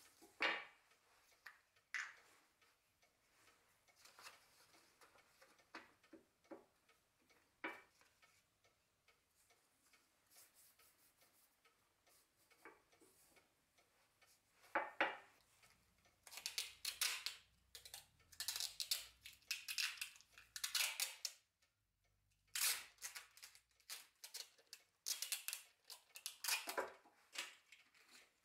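Hands handling a wooden block with its paper pattern on a scroll saw table, with the saw switched off: scattered clicks and knocks at first, then from about halfway through repeated short scratchy rustles and scrapes.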